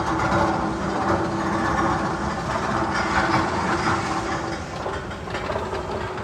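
A steady train-like rumble and clatter, one of the tunnel sound effects on the Magnum XL 200 roller coaster, easing a little in the second half.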